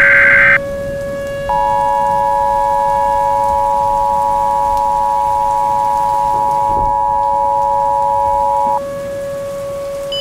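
Emergency Alert System tones: a burst of screeching header data ends about half a second in, then the two-tone attention signal sounds steadily for about seven seconds. A constant lower steady tone and a rain-like hiss run underneath.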